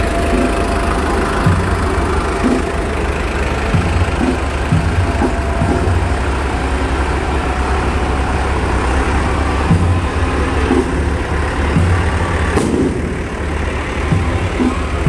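Diesel engines of farm tractors, Massey Ferguson tractors among them, running at low speed as the tractors pass close by, a steady low rumble with uneven knocks.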